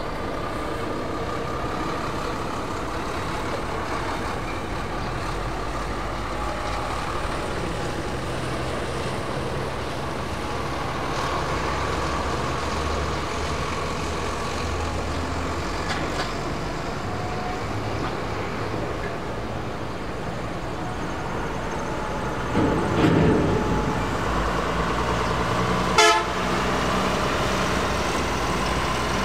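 Road traffic running outdoors with vehicle horns tooting, over a steady hum. A louder, rougher stretch comes about 23 seconds in and a single sharp click near the end.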